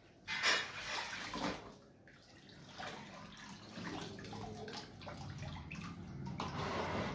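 Hands swishing spinach leaves about in a tub of water and lifting handfuls out, with irregular sloshing and splashing. The loudest splash comes about half a second in.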